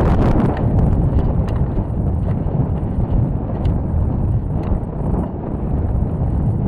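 Steady wind rushing and buffeting over the microphone of a camera riding on a high-power rocket as it descends under its parachute, with a few light ticks scattered through.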